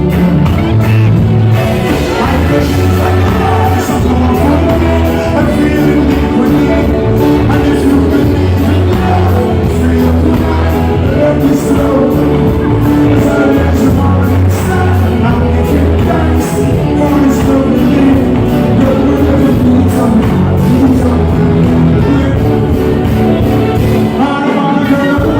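Loud amplified concert music with a heavy bass line and a steady beat, a singing voice over it.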